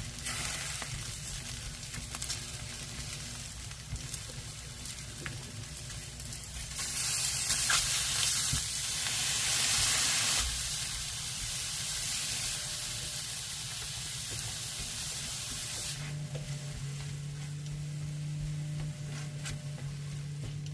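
Food sizzling in a hot frying pan, with some stirring. The sizzle swells louder for a few seconds about seven seconds in, then settles back, and a low steady hum joins near the end.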